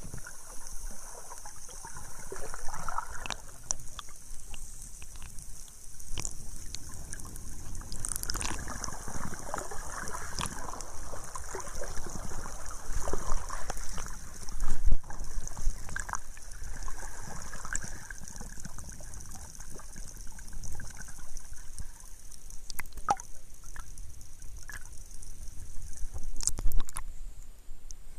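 Seawater sloshing and gurgling as heard by a camera held underwater, muffled, with scattered clicks and knocks. Near the end there is a louder splashy surge as the camera breaks the surface.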